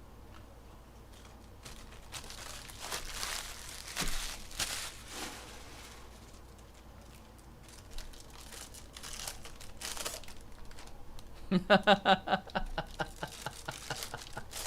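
Wrappers of 2021 Bowman Baseball jumbo card packs being torn open and crinkled, in uneven rustling spells. Near the end a short pitched sound pulses quickly several times, louder than the rustling.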